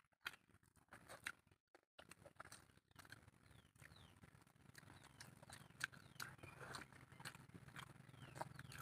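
Faint close-up eating sounds: wet chewing and lip-smacking, with fingers squishing rice and curry gravy, an irregular run of small clicks and squelches.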